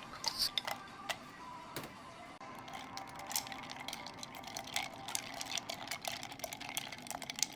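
Ice cubes dropping and clinking into a pitcher of milk drink: a run of light, irregular clicks, sparse at first and denser from a couple of seconds in.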